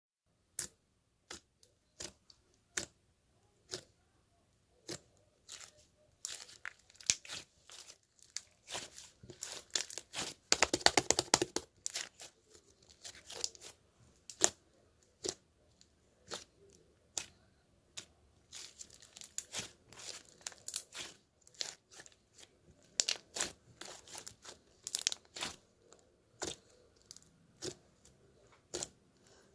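Close handling noises: scattered sharp clicks and crinkling, with a dense burst of crackling about ten to twelve seconds in.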